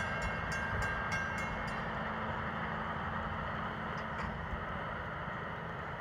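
Passenger train moving away down the track: its wheels click over the rails for the first second and a half or so, then only a steady rumble is left, slowly fading.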